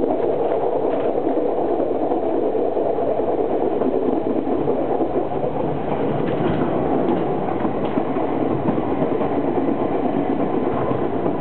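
Steady rumble of a moving train, heard from inside the passenger carriage, with a few faint clicks from the wheels.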